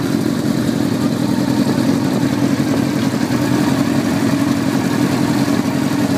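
Motorcycle-type engines of a home-built twin-engine machine running steadily, without revving: a loud, even engine note.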